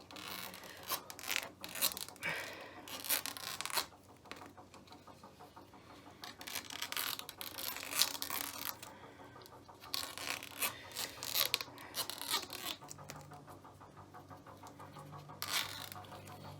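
Hockey tape being peeled off the knob of a stick in a series of short, noisy rips and scrapes, some louder than others.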